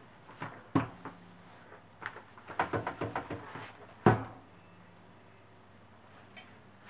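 Steam iron bumping and knocking on a padded pressing mat as a fabric seam is pressed, then set down on its heel with a louder single clunk about four seconds in.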